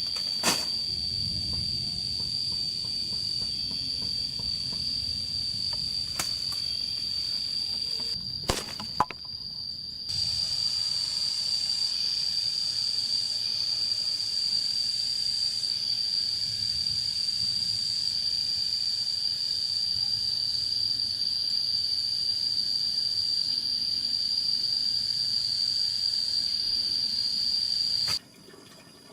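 Insects shrilling in one steady high-pitched tone, with a few sharp knocks in the first nine seconds. The shrilling breaks off briefly about nine seconds in and stops suddenly near the end.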